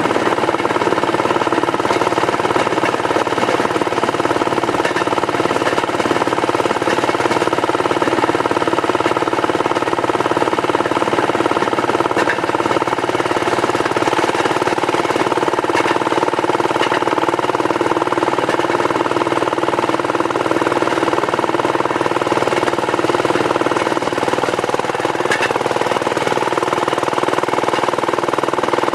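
Rail section car (speeder) engine running steadily under way on narrow-gauge cane-railway track, with a few sharp clicks.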